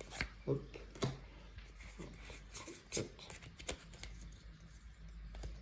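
Pokémon booster pack and trading cards being handled: the foil wrapper crinkles and the cards rustle and tap against each other in short, scattered sounds.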